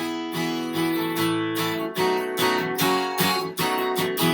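Acoustic guitar strumming chords in a steady rhythm, the introduction before the singing of a children's worship song.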